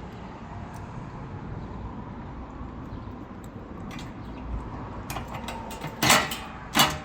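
Steady low shop background noise, then about six seconds in two loud, short knocks of metal washer parts being handled while screws are set into the transmission base plates.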